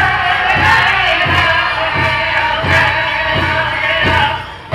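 Powwow drum group singing a chicken dance contest song: a group of men sing high over a large hand drum struck in a steady beat. The song drops away briefly near the end, then picks up again.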